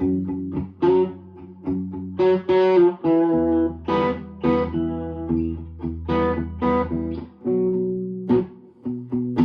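PRS electric guitar played through an amp: picked chords and single notes left to ring, over low notes held for several seconds.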